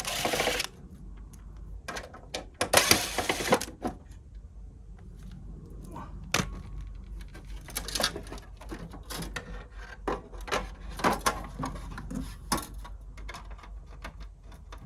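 Small metal screws and parts clicking and rattling as a heater casing is taken apart by hand: two short scraping rattles at the start, then scattered sharp clicks.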